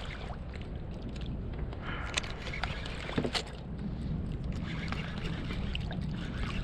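Water sloshing around a fishing kayak with a steady low rumble of wind on the microphone, and two sharp knocks about two and three seconds in.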